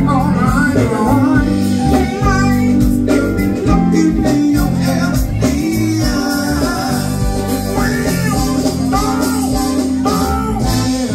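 Live band playing loudly: a man sings into a microphone over electric guitar, bass, keyboards and drums.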